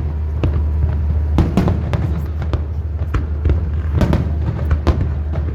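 Fireworks display: a rapid, irregular series of bangs and crackles, several a second, over a steady low rumble.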